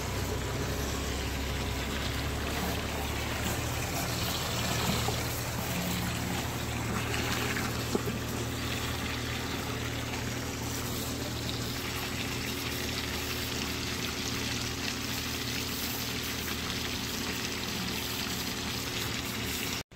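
Water spraying steadily onto a vehicle being washed, over a steady low motor hum; the sound cuts off suddenly near the end.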